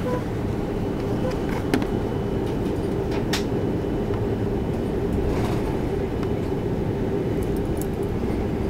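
Cabin noise inside an Airbus A330-300 airliner: a steady low rumble with a faint hum, broken by a few sharp knocks and rattles.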